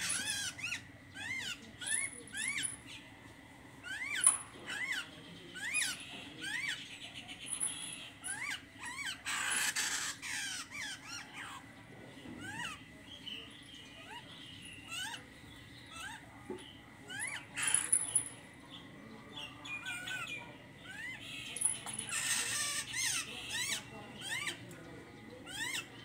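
Caged songbirds calling: runs of short chirps that rise then fall, with a few thin high whistles. Two brief rushing noises come in, one near the middle and one near the end.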